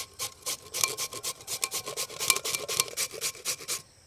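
A carrot being grated by hand on a stainless steel grater: a fast run of even strokes, about five a second, that stops shortly before the end.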